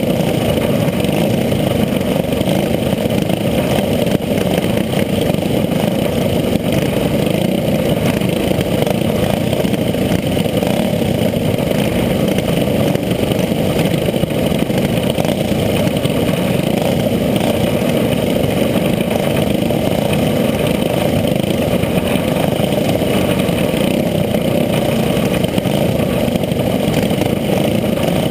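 Racing go-kart's small petrol engine running at close range during a race lap, a loud, steady drone.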